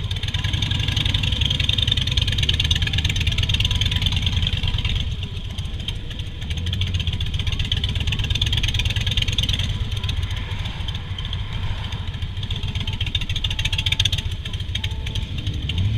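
Harley-Davidson Softail Standard's V-twin engine running while the motorcycle is ridden, revs rising and easing off, with a drop in engine note about five seconds in and again near the end. A steady hiss runs over the engine.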